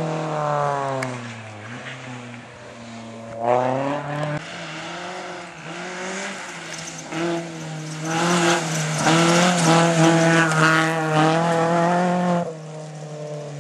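Rally car engines revving hard: the pitch falls as the driver lifts off. It climbs sharply again a few seconds in, then holds a long, loud high-revving run near the end before dropping suddenly.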